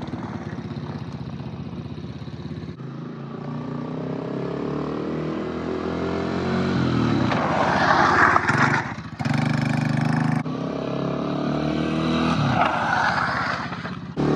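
Engine of an X-Pro 125 four-wheeler revving up and down, its pitch climbing to a loud peak about eight seconds in. The sound cuts off abruptly just after nine seconds and resumes a second later.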